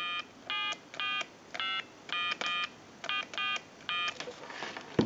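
Touch-tone keypad of a Telemania wooden duck telephone dialing out: a string of short DTMF tone pairs, about nine beeps roughly half a second apart, two of them in quick succession in the middle. A sharp click near the end.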